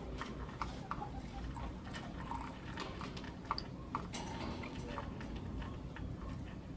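Lovebirds pecking and moving about in their cage: irregular sharp little clicks and taps, with no calls.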